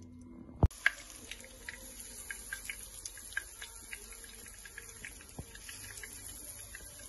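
Hot oil sizzling with scattered small pops and crackles as breaded chicken cordon bleu rolls shallow-fry in a frying pan. It starts abruptly with a sharp click under a second in.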